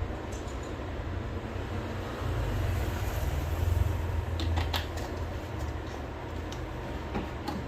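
A steady low hum, swelling slightly in the middle, with a few light sharp clicks about four and a half seconds in and again near the end.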